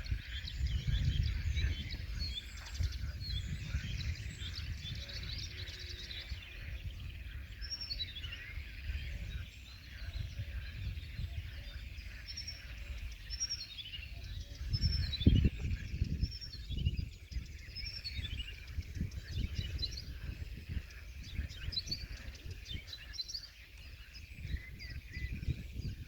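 Blyth's reed warbler singing a slow, varied song, with many short falling whistled notes repeated about a second apart. A low rumble runs underneath, with a thump about fifteen seconds in.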